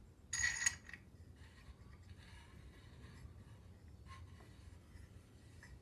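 A brief metallic rattle and scrape of a hand tool being handled, about half a second in, followed by faint handling noise and a small click.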